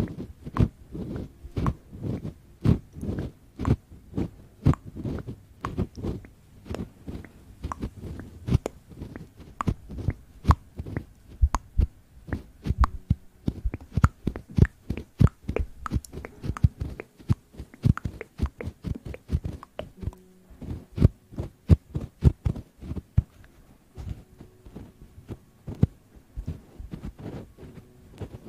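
A small handheld object rubbed and pressed against a microphone close up: a quick, irregular run of soft muffled thumps and scratchy taps, several a second.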